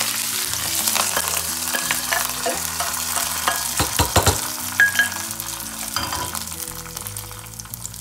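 Hot oil tempering of mustard seeds, urad dal, black pepper and chillies sizzling and crackling as it is tipped from the pan into rava batter. The sizzle fades over the first few seconds. A few sharp clinks of a spoon against the glass bowl follow, about four to five seconds in.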